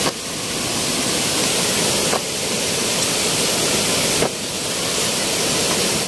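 Small waterfall splashing into a shallow rock pool: a steady rushing of water that dips briefly twice, about two and four seconds in.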